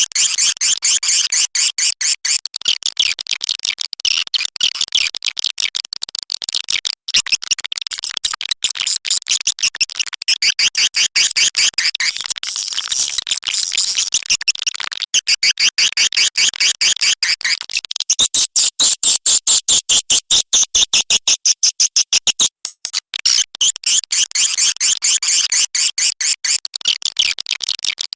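Swiftlet calls from a lure sound track: a dense, unbroken stream of rapid high chirps, many each second, overlapping in layers.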